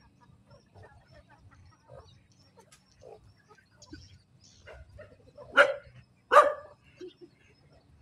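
Backyard poultry flock of chickens and a duck, with faint scattered calls and then two short, loud, harsh calls a little under a second apart just past halfway.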